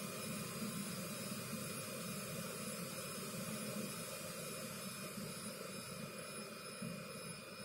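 Universal Laser Systems laser cutter running an engraving job: a steady whirring hiss with a low hum underneath.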